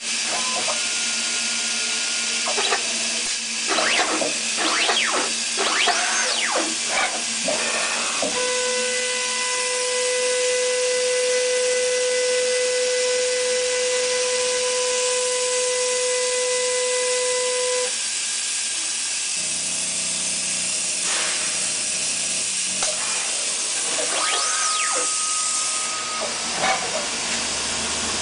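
MPM UP2000/B stencil screen printer running: a steady hiss with motor whines that rise and fall in pitch several times. A steady tone is held for about ten seconds in the middle.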